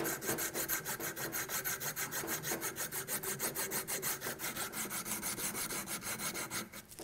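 Medium-grit abrasive cloth strip rasping back and forth around the aluminum hose nipple of a water pump housing, in quick, even strokes that stop just before the end. The strip is sanding off coolant corrosion to find how deep the pitting goes.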